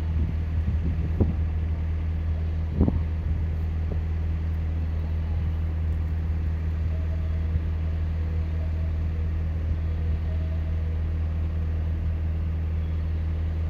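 Steady low electric hum of a standing electric train, with a couple of short knocks about one and three seconds in.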